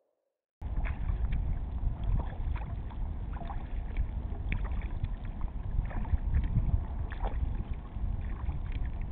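Sea kayak being paddled: the blades dipping and splashing in the water at an irregular pace, over a steady low rumble of wind on the microphone. The sound cuts in suddenly about half a second in.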